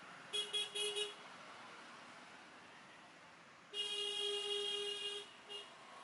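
Vehicle horn honking: three quick short toots, then a long honk of about a second and a half, and one more short toot.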